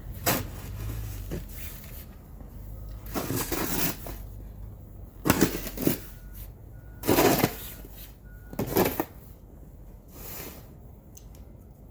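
Snow shovel scraping and pushing heavy snow across a driveway, about six strokes a second or two apart, over a low steady rumble.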